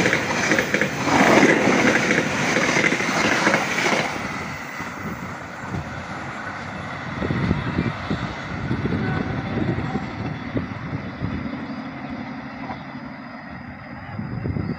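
KA Taksaka express passenger coaches rushing close past on the rails, loud wheel-on-rail noise. About four seconds in it cuts to a much quieter low rumble with wind buffeting the microphone as a train draws away down the line.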